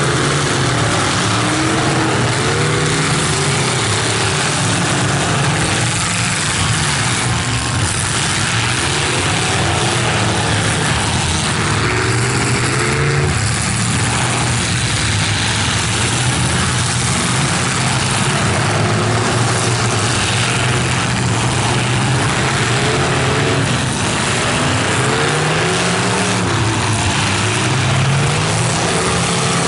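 Engines of stock full-size demolition derby cars running loud and revving up and down again and again, several at once.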